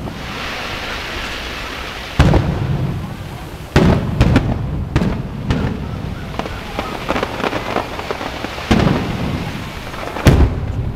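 Aerial firework shells bursting with sharp booms: one about two seconds in, a quick cluster around four to five seconds, and two more near the end, the last among the loudest. Sparkle crackle and hiss fill the gaps between the booms.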